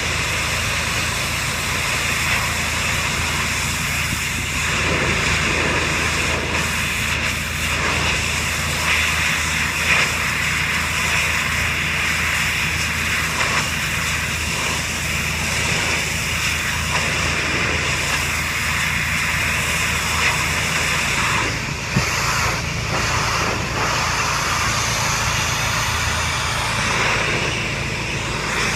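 Pressure washer running: a steady engine drone under the continuous hiss of the high-pressure water spray.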